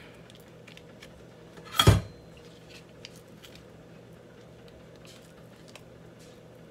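Kitchen knife slicing butter from a paper-wrapped stick onto meatloaf in a glass baking dish: faint scattered taps and clicks, with one loud knock about two seconds in.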